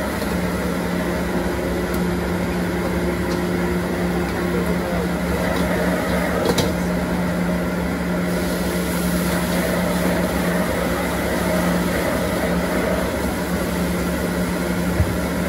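Street wok stove's gas burner and blower fan running with a steady hum, with two sharp knocks, one about six and a half seconds in and one near the end.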